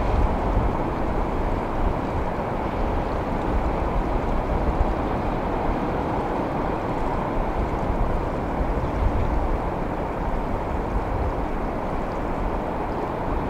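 Steady rushing of ocean water and surf, with wind buffeting the microphone in a restless low rumble.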